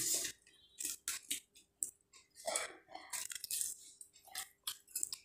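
Close-up chewing and lip-smacking while eating roast chicken by hand: short wet smacks and clicks at irregular intervals.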